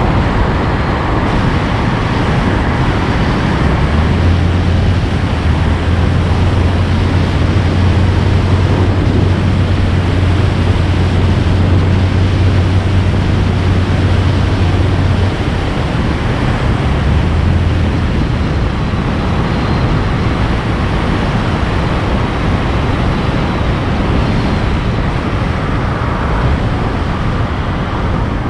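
A road vehicle on the move: steady engine and road noise, with a strong low engine drone from about four seconds in until about fifteen seconds in.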